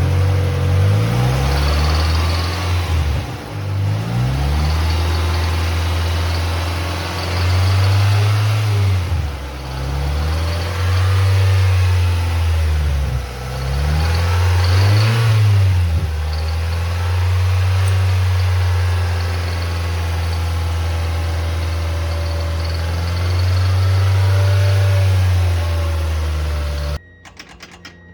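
Mazda Miata NB 1.8 L VVT four-cylinder engine idling and being revved in several short blips, the pitch rising and falling back to idle each time; the owner suspects a possible rod knock. The sound cuts off sharply near the end.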